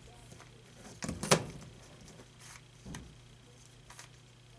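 MoYu Redi Cube, a plastic corner-turning twisty puzzle, being turned by hand: a few scattered clicks of the pieces, the loudest about a second in.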